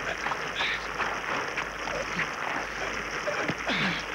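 Two people struggling: scuffling and scattered short knocks, with a few brief cries, the clearest a little before the end, over a steady hiss.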